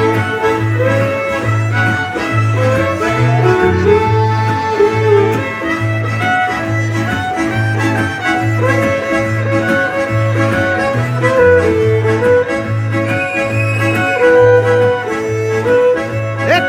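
Live acoustic band playing an instrumental dance tune: fiddle and diatonic Cajun button accordion carry the melody over acoustic guitar and a steady bass pulse.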